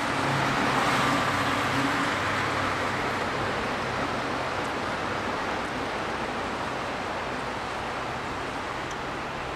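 City street traffic noise: a steady rush of road traffic with a low engine hum under it, loudest about a second in and easing off slightly.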